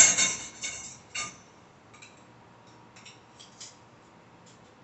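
Metal dish-rack rods clinking and clattering against other metal rack parts on a tabletop, loudest right at the start, with a last clink about a second in. Then faint scattered ticks and scrapes as threaded rod sections are twisted together by hand.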